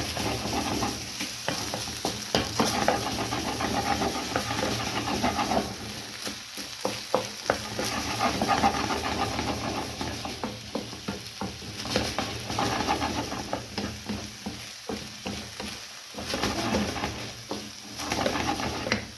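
Fried rice sizzling in a hot pan while being stirred and mixed to coat it with soy sauce, with many short scrapes and knocks against the pan.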